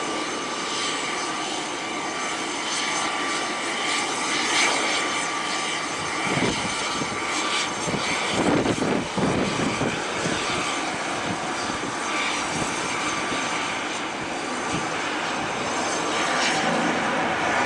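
B-25 Mitchell's twin Wright R-2600 radial engines running at takeoff power as the bomber rolls down the runway and lifts off in a touch-and-go. The engine noise is steady, swells unevenly midway, and grows louder near the end.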